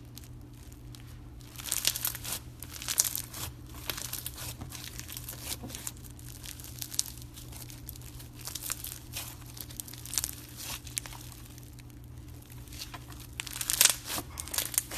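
Slime being squished and stretched by hand, giving off crackling, crinkly pops. The pops come thickest in a burst about two seconds in and again near the end.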